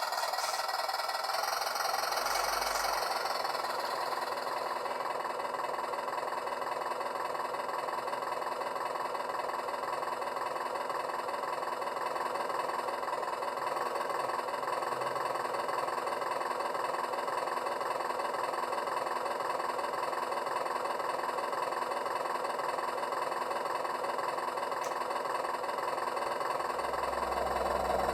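RC model vaporetto's motor or engine sound running steadily, an even machine drone with a slight regular waver. A lower hum joins in near the end.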